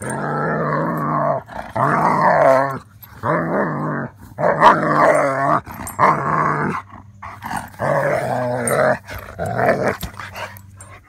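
A dog vocalising in about seven long, pitched calls of a second or so each, the pitch bending within each call, with a short break about two-thirds of the way through and a steady low hum beneath.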